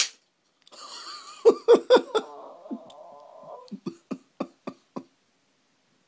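A young child making vocal sound effects instead of words: a raspy, breathy sound with several loud bursts in it, then a quick run of short, sharp vocal bursts, about four a second.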